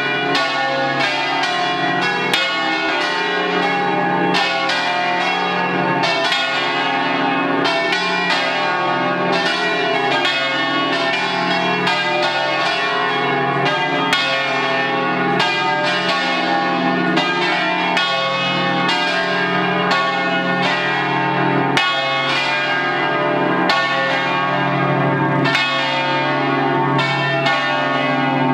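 Several church bells in a bell tower ringing together, rung electrically, in a solemn peal: a continuous, dense peal of overlapping strikes.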